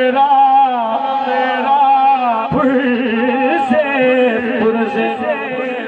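A man singing a Punjabi Sufi kalam into a microphone, drawing out long, wavering held notes, with a brief break about two and a half seconds in.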